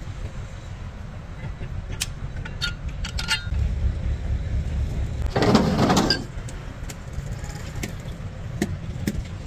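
Steel tools clinking and knocking against a bulldozer final drive's sprocket hub, several sharp clinks a few seconds apart over a steady low rumble. About five and a half seconds in, a louder noisy rush lasts about a second.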